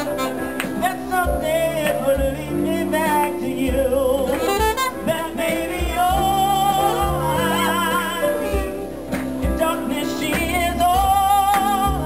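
Live jazz ballad: piano chords under a saxophone melody with vibrato, and a man singing into a microphone.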